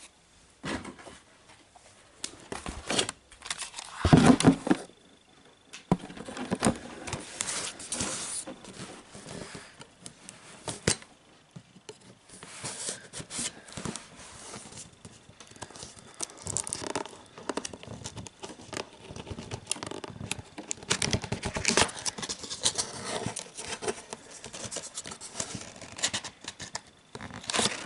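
A boxed figure's cardboard and packaging being handled and opened by hand: irregular rustling, scraping and small knocks, with one louder knock about four seconds in.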